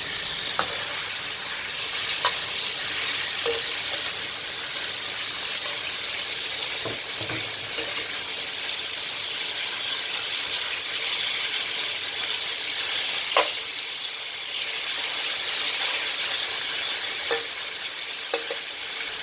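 Fish pieces frying in hot oil over a high flame, with a steady sizzle. A few sharp clicks of a utensil against the pan come through it, the loudest about two-thirds of the way through.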